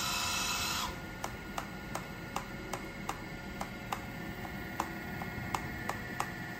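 ET26 RC hydraulic excavator working its grapple: a loud whine of the hydraulic pump drops away about a second in to a quieter steady hum, with sharp regular ticks about three a second.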